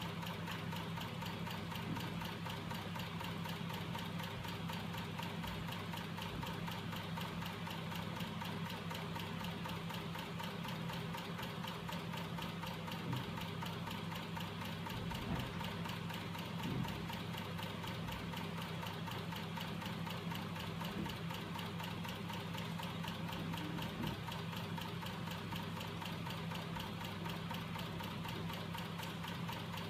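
Homemade magnet-driven crank mechanism running steadily on its small DC electric motors: a constant motor hum with a fast, even mechanical clatter from the moving crank linkage.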